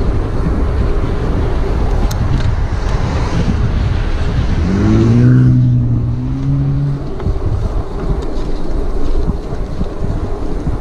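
Wind buffeting the camera microphone on a fast bicycle descent down a paved road, a steady low rumble. About halfway through, a short pitched hum rises and then holds for two seconds before fading.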